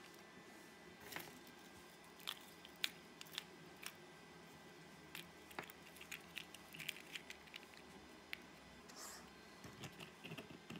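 Faint, irregular clicks and taps over low room noise, the sharpest nearly three seconds in, with a denser run of them in the second half.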